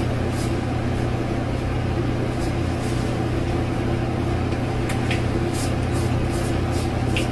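Steady low hum of a running electric fan, with a few short scrapes of a Blue Shave Club cartridge razor drawn across a lathered scalp.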